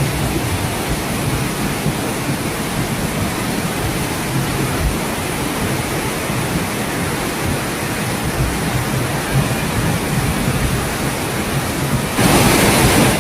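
Steady rushing noise of heavy water with a low rumble underneath, growing louder about a second before the end.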